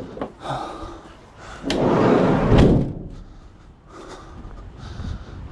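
Van's sliding side door run shut and slammed: a sharp click about one and a half seconds in, a heavy rolling rumble, then a loud slam near the three-second mark, after a few lighter knocks.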